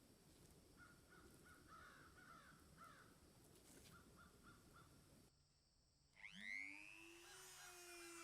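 Faint, scattered small sounds, then about six seconds in a small electric motor spinning up, rising quickly in pitch and then running at a steady speed.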